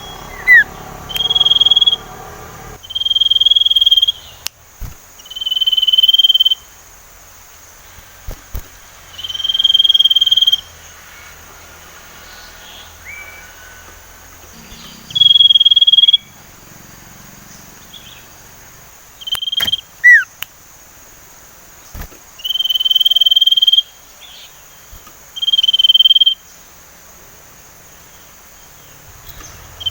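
Sirtu bird whistling: about eight long, steady, high-pitched notes held at one pitch, each lasting up to a second and a half, spaced irregularly, with a few brief sliding chirps between them, as a young bird practising its whistle.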